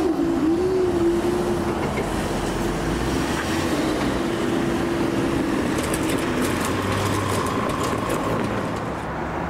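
A c2c Class 357 electric train running on the rails as it moves off past the crossing, the rail noise now mixed with road traffic. A steady tone that wavers in pitch runs through it, and faint high clicks come about two-thirds of the way in.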